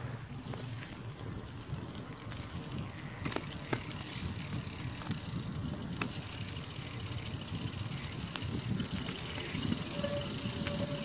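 Bicycles rolling along a paved path, heard as a steady, uneven low rumble with scattered light clicks. A faint short high tone comes in near the end.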